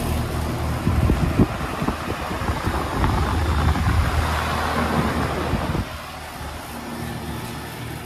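Outdoor central air-conditioner condenser unit running in cooling mode: a steady rush of air from the top-mounted fan over a low compressor hum. The sound drops off noticeably about six seconds in.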